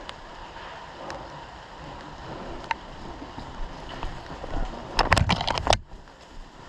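A short burst of airsoft gun fire: a rapid string of about eight sharp cracks lasting under a second, about five seconds in. Before it there is rustling and handling noise from movement through undergrowth, with the odd click.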